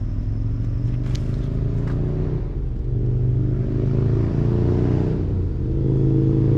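An engine running steadily with a low hum that grows louder over the last few seconds. A couple of faint clicks sound in the first two seconds.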